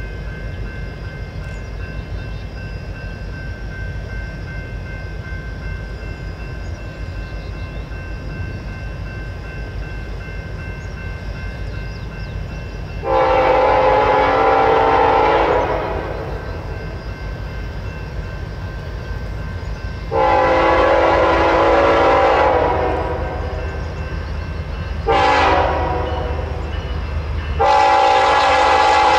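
BNSF diesel freight train approaching with a steady low engine rumble, its locomotive horn sounding the grade-crossing signal: two long blasts, one short, then a final long blast starting near the end.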